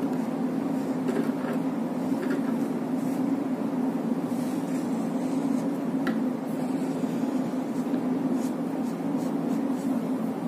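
A steady low hum runs throughout, with faint light scratches and taps of a pen drawing on a paper card.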